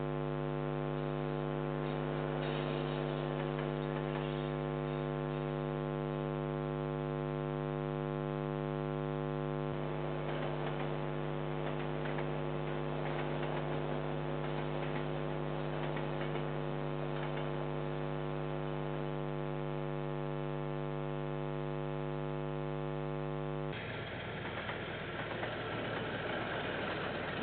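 Steady electrical mains hum with a stack of evenly spaced tones, picked up by the security camera's audio. Near the end the hum gives way to a noisier sound of a KiwiRail diesel freight train passing.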